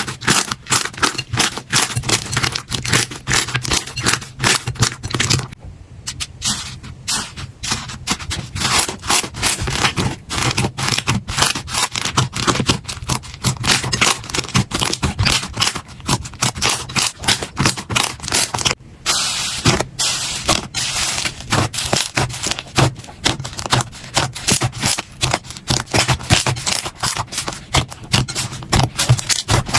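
Slime being pressed, stretched and squished by hand, giving a dense, fast crackling of small pops and clicks with scraping.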